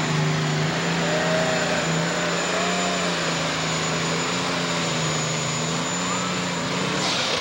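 Turbocharged diesel engine of a John Deere super stock pulling tractor running flat out under load, dragging the weight-transfer sled, with a steady high engine note. The note falls away near the end as the pull finishes.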